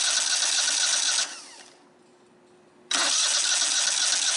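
Electric starter cranking a Kohler twin-cylinder riding-mower engine in two bursts. The first stops about a second in and winds down; the second starts suddenly near three seconds in. It is turned over for a spark test that shows no spark on that cylinder, diagnosed as a bad ignition module.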